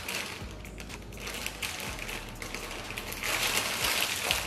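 Candy wrapper crinkling and crackling as it is peeled off a milk-candy-filled cone, in many small uneven clicks that grow louder near the end.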